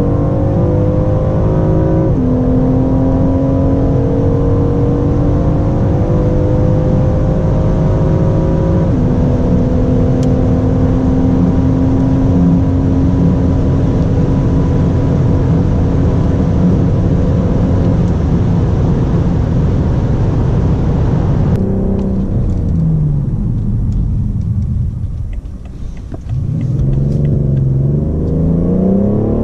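BMW M760Li's 6.6-litre twin-turbo V12 pulling hard under acceleration, revs climbing with upshifts about two and nine seconds in, then holding high speed. About twenty-two seconds in it eases off with the revs falling, then near the end it accelerates again with the revs rising steeply.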